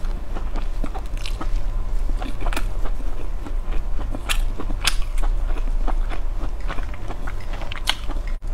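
Close-miked chewing of crispy grilled skewered meat, with irregular sharp crunches and wet clicks from the mouth.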